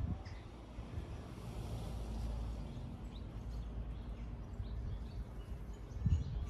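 Outdoor ambience: faint birds chirping over a low, steady rumble, with a soft knock at the start and another near the end.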